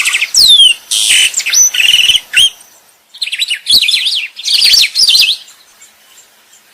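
A songbird singing a rapid, varied song of sweeping whistles, slurred notes and trills in several bursts, with a short pause about three seconds in and a quieter stretch near the end.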